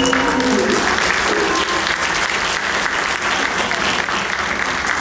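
Audience applauding as the dance music ends; the last held notes of the accompaniment cut off in the first half-second.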